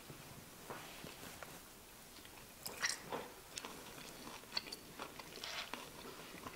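A person chewing a bite of sliced smoked beef eye round roast, faint, with scattered short mouth clicks.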